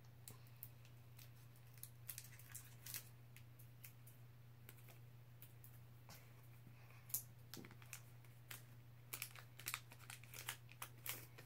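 Pokémon card booster-pack foil wrapper crinkling and tearing as it is opened, in faint scattered crackles that grow busier in the last few seconds, over a steady low hum.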